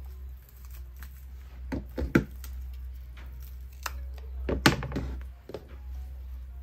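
Scissors snipping stray stems on a dried-flower wreath, with a few short knocks from handling on the tabletop; the two loudest come about two seconds in and again near five seconds. A steady low hum runs underneath.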